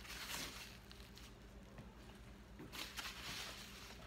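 Faint rustling and handling of a leather handbag with wrapped handles as it is picked up: two brief rustles, one at the start and one about three seconds in, with a few small clicks.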